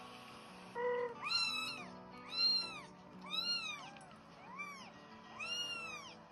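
A kitten meowing about six times in quick succession, each meow short and rising then falling in pitch, coming from a cat video played on a laptop.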